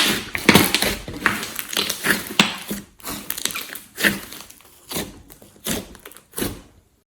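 Glossy slime being squeezed and pressed by hand, giving sticky squelches and crackling air-bubble pops. The sounds come in irregular bursts, dense at first, then further apart and quieter, and stop shortly before the end.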